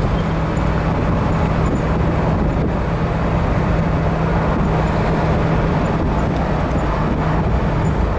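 1960 Ford Thunderbird's V8 running steadily at cruising speed, heard from inside the open convertible with a constant wash of wind and tyre noise over the low engine hum.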